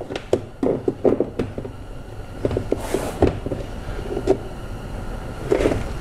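A 2013 Dodge Dart's plastic rear door trim panel being pried at its clips with a panel removal tool: irregular clicks and knocks of plastic, with a brief scraping rustle about three seconds in and a few more knocks near the end.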